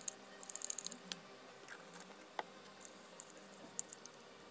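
Faint scratchy strokes of toothbrush bristles dipped in a plastic cup of liquid and brushed over a PC power supply's circuit board: a quick run of strokes about half a second in, then scattered light ticks.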